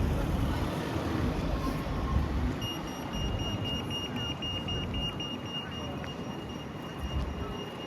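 A steady, high-pitched electronic tone, starting about two and a half seconds in and holding unbroken, over a low rumble of vehicle noise.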